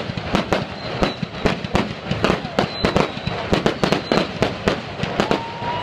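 Aerial fireworks bursting in a rapid barrage of sharp bangs, about four a second.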